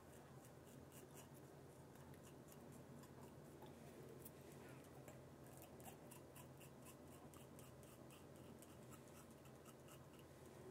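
Faint scratching of a Feather double-edge safety razor cutting through lathered stubble in quick short strokes, several a second.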